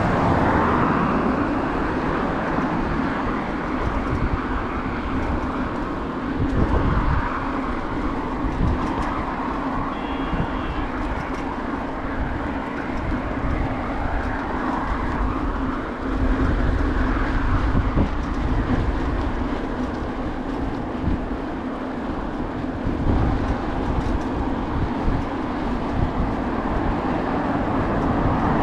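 Wind and road noise from riding a bicycle: a steady rushing noise, with uneven low rumbles of wind hitting the microphone and the tyres rolling on pavement.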